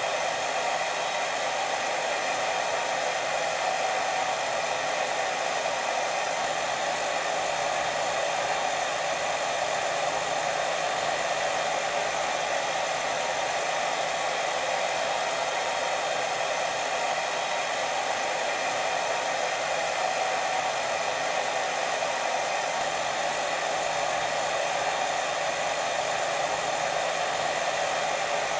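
Steady white noise for sleep: an even, unbroken hiss with no rhythm or pulsing.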